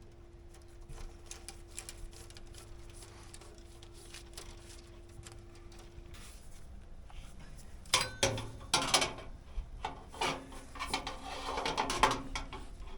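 Hard objects being handled: light clicks over a faint steady hum that stops about six seconds in, then from about eight seconds in a run of loud knocks and clattering.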